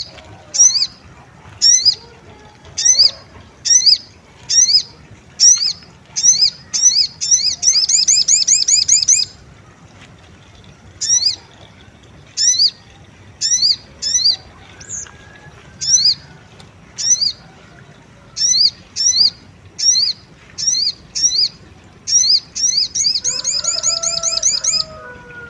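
Sunbird calling: sharp rising chirps about once a second, twice breaking into a fast rattling trill.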